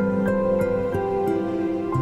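Soft instrumental background music: a calm melody of held notes moving every half second or so over a sustained low bass note.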